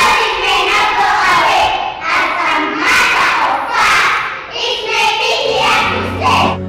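A group of schoolchildren reciting a choral verse in unison, loudly and with strong emphasis. Low background music comes in near the end.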